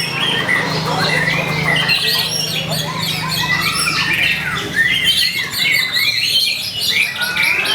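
White-rumped shama (murai batu) singing a fast, unbroken run of varied whistles, sweeping notes and harsh chattering squawks, the full-voiced competition song used to provoke other shamas into answering.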